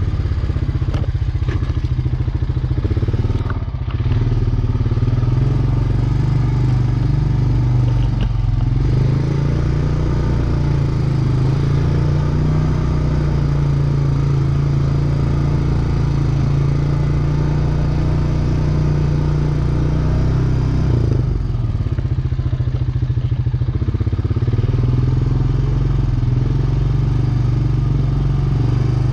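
ATV engine running, its pitch rising and falling slowly as the engine speed changes, with brief dips about three and a half seconds in and again around twenty-one seconds.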